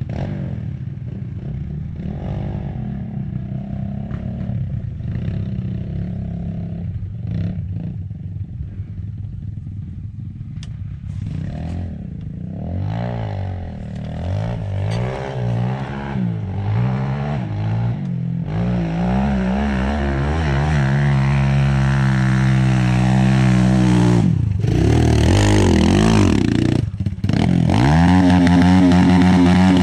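RXF 150 pit bike's single-cylinder four-stroke engine being ridden hard: at first a low rumble with clatter, then from about twelve seconds in the revs rise and fall again and again. It builds to a steady high-revving run, with two brief cuts in the throttle near the end, and is at its loudest at the close.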